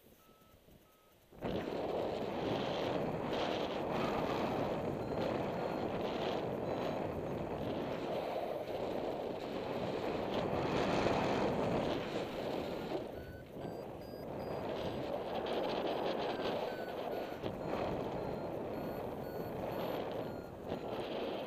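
Wind buffeting a camera microphone on a paraglider in flight. It starts suddenly about a second and a half in and rises and falls in strength. Underneath run faint series of short electronic beeps from a flight variometer.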